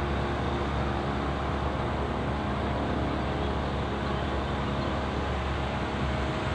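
Tohatsu outboard motor running steadily under load, pushing a heavy floating cabin boat, over the steady rush of fast-flowing river water.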